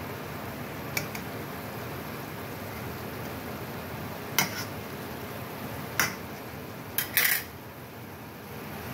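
Metal spatula clinking and scraping against a stainless steel skillet five times, the last a slightly longer scrape just after the fourth, over a steady sizzle of ham, mushrooms, bell pepper and pineapple frying.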